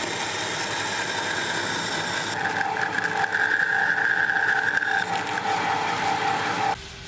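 A machine running with a steady whine that pulses slightly, starting and cutting off suddenly.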